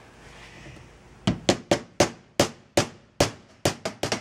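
Ball-peen hammer tapping a pinion seal into a billet aluminium pinion bearing retainer for a Ford 9-inch third member, seating it flush. Light, sharp taps at about three or four a second, starting a little over a second in.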